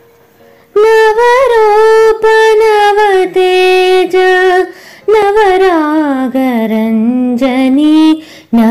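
A woman singing long held notes without words, bending and sliding in pitch between them, the sung opening of a devotional song. The voice comes in about a second in and drops to a lower held note about halfway through.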